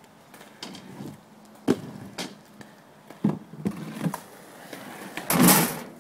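Skateboard riding over ramps and flat ground: wheels rolling with several sharp clacks and knocks of the board, then a louder half-second rush of noise a little after five seconds in.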